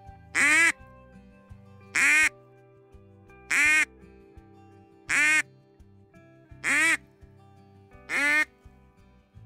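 Handheld duck call blown in six short, loud quacks about a second and a half apart, imitating a duck's quack to draw ducks in to the decoys. Steady background music plays underneath.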